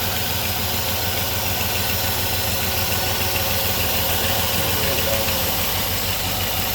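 4.7-litre V8 idling steadily after a cylinder head replacement, with a steady hiss over the engine note that the owner suspects is a vacuum leak.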